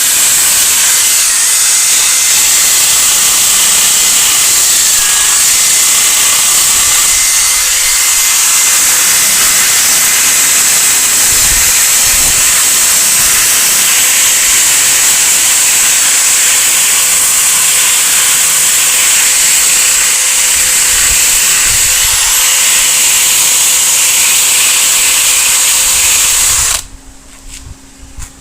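Electric drill spinning a wire wheel against the cracked plastic of a truck dash pad, grinding out the cracks and their hard edges: a loud, steady, high hiss that cuts off suddenly near the end.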